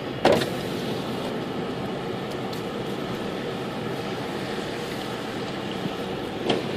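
Steady engine and road noise inside a moving car's cabin on a wet road, with a short knock just after the start.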